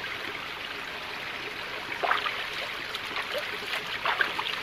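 Small rocky mountain stream running and trickling over stones, with a few brief splashes about two seconds in and near the end as a hand scoops water from it.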